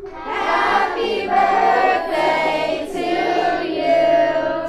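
A group of children singing together, holding long notes.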